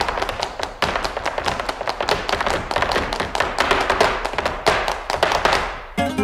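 Rapid, dense tapping and knocking, several sharp strikes a second. It cuts off abruptly just before the end, when plucked flamenco-style guitar music begins.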